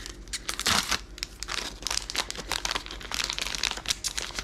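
Thin plastic packaging crinkling and tearing as a small Mini Brands item is unwrapped by hand, in quick irregular crackles. The loudest crackle comes a little under a second in.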